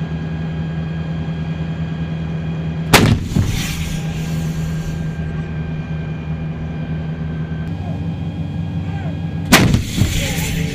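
Two M109 Paladin 155 mm self-propelled howitzers firing, two sharp blasts about six and a half seconds apart, each with a rumbling tail. A steady diesel engine hum from the idling vehicles runs underneath.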